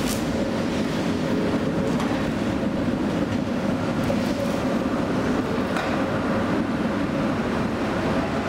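Tatra T4R tram rolling slowly past on snowy track, a steady rumble of wheels and running gear with a faint steady hum, and a sharp click right at the start.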